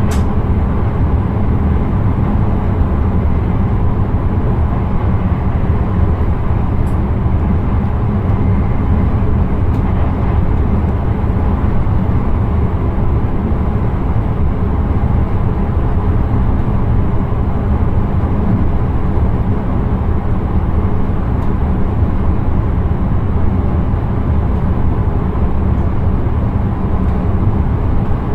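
Steady running noise inside the driver's cab of an intercity train: a low, even rumble of the train rolling along the track, with a few faint clicks.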